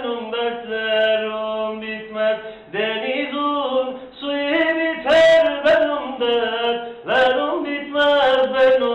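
A man singing a Turkish folk song (türkü) in phrases of a few seconds each.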